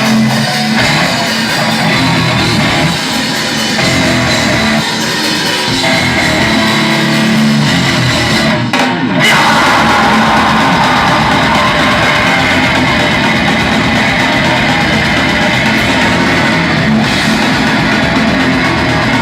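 A rock band playing live, with electric guitars and a drum kit, loud and continuous. A brief break comes about nine seconds in, and the sound is fuller after it.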